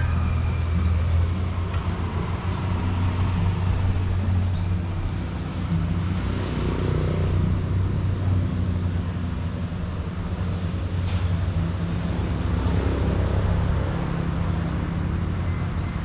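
Steady road traffic noise: a continuous low rumble of passing cars and other vehicles, with no single event standing out.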